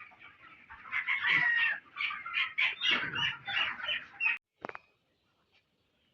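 A flock of Sonali chickens clucking and squawking together, a dense chatter that cuts off suddenly about four seconds in, followed by a few faint clicks.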